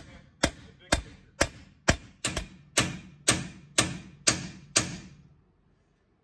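Hammer driving a new pinion outer bearing race into a Ford Super Duty rear axle housing with a race driver: about a dozen sharp metal-on-metal blows, roughly two a second, each ringing briefly. The blows stop about five seconds in.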